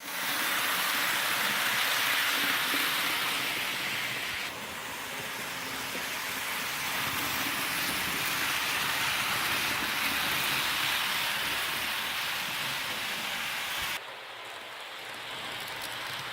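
Märklin Digital HO-scale ICE model train running on its track: a steady whirring, rushing rolling sound of the motor and wheels on the rails. The sound steps down abruptly about four and a half seconds in and again near the end.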